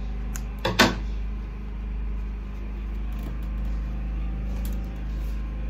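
Steady low mechanical hum of a running machine, with a single sharp click just under a second in.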